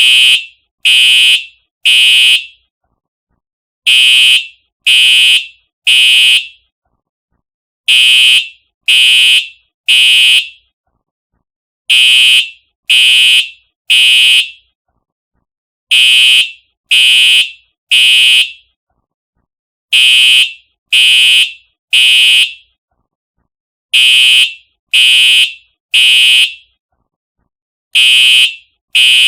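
Simplex TrueAlert fire alarm horn sounding the temporal-three evacuation pattern: three loud, high-pitched half-second blasts about a second apart, then a pause, repeating every four seconds.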